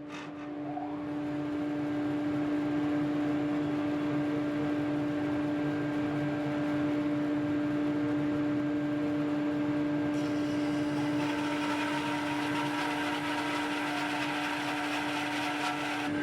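Electric woodworking power tool running with a steady hum, spinning up over the first couple of seconds and then holding speed. About ten seconds in, a hissier sound joins it, as of the tool starting to work the wood.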